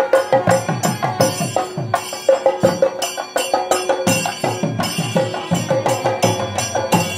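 Traditional Kerala temple procession music: drums beat a fast rhythm, their deep strokes falling in pitch, with small cymbals clashing on the beat over a steady held drone.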